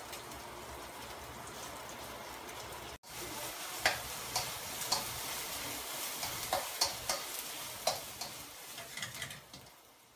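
Thinly sliced marinated beef sizzling in vegetable oil in a wok over high heat, with a steady hiss that breaks off for an instant about three seconds in. In the second half, the tongs click and scrape against the wok a dozen or so times as the beef is turned, and the sizzle fades out near the end.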